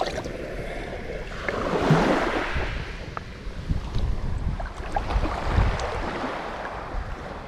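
Sea water washing over the shallows at the shoreline, with wind rumbling on the microphone; a louder wash swells up about two seconds in.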